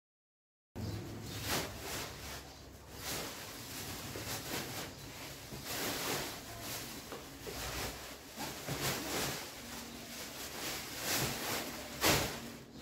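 Rustling and knocking of objects being handled, irregular throughout, with a louder knock about twelve seconds in. It starts after a moment of dead silence.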